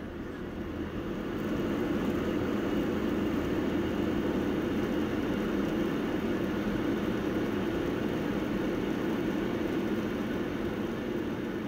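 Jet airliner's engines running, heard from inside the cabin as a steady low roar that grows louder over the first couple of seconds and then holds.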